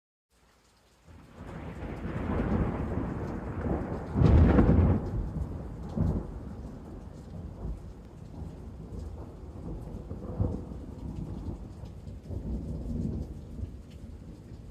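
Wind blowing in gusts, a deep noisy rush that rises and falls, swelling loudest about four seconds in and again more weakly several times after; it starts out of silence about a second in.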